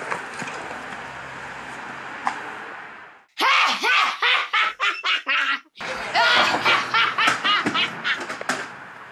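Loud laughing in rapid short bursts, starting abruptly after about three seconds of steady rustling noise and broken by a brief cut to silence partway through.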